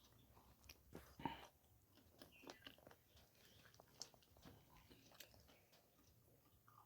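Close-miked chewing of spicy pork curry and rice: soft, wet mouth smacks and clicks at an irregular pace, the loudest about a second in.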